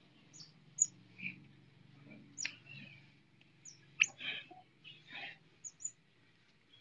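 Young pet otter giving short, high-pitched chirps, about eight of them scattered through, with a few rougher squeaky calls between.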